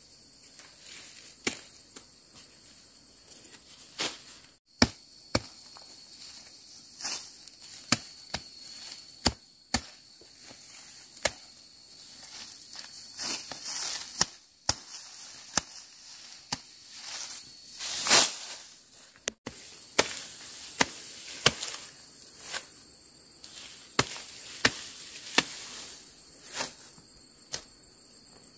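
Ripe rice stalks being cut by hand: a sharp snap roughly every second at an uneven pace, with rustling of the stalks, loudest a little past the middle. Insects drone steadily in the background.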